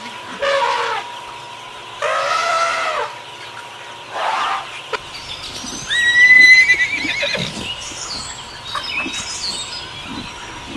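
Horse neighing and whinnying, several separate calls, one of them a high, quavering whinny about six seconds in.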